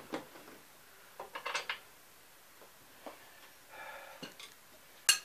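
Metal hand tools clinking and rattling against stern-drive hardware: scattered clicks, a quick clatter of several strikes about a second and a half in, and a sharp click near the end, the loudest.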